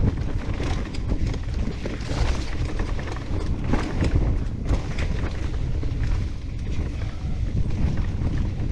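Mountain bike ridden along a rough forest trail. Wind buffets the microphone over a steady tyre rumble, with frequent knocks and rattles from the bike over bumps.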